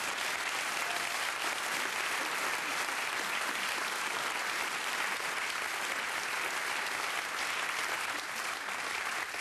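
Studio audience applauding steadily, with some laughter mixed in.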